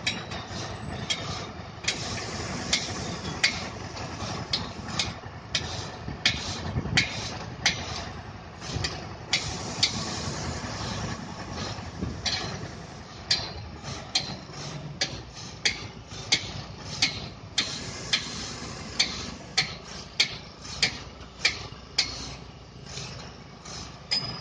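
Repeated sharp knocks, irregular, about one to two a second, over the steady low running of a truck crane's engine.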